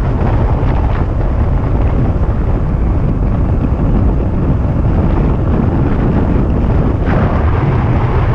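Wind buffeting the microphone of a moving electric bike, a steady loud low rumble.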